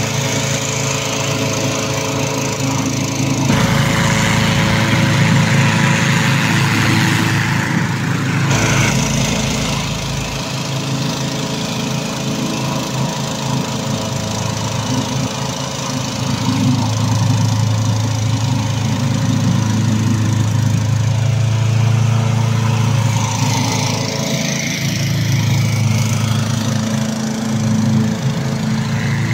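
Petrol engine of a remote-controlled tracked mower running steadily as the machine pushes snow with its front blade, growing louder at times. A rougher scraping hiss of snow against the blade comes and goes.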